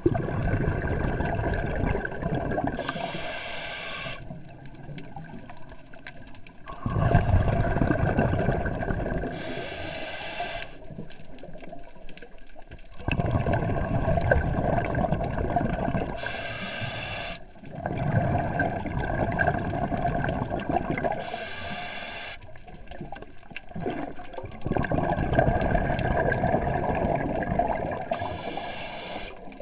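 Scuba diver breathing underwater through a regulator. Each breath is a short hiss as the diver breathes in, then a longer rush of exhaled bubbles, about five breaths in all, one every five to six seconds.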